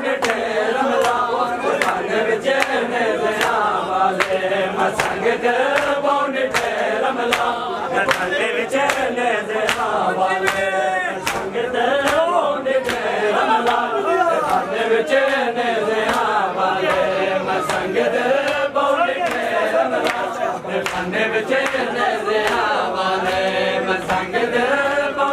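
A crowd of men chanting a noha together in a steady rhythm, over a regular beat of sharp slaps from hands striking bare chests in matam.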